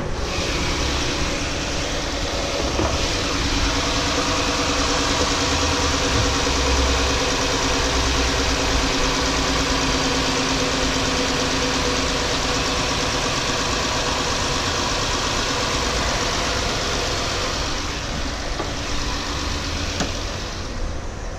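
2014 Dodge Journey's engine idling steadily under a constant hiss.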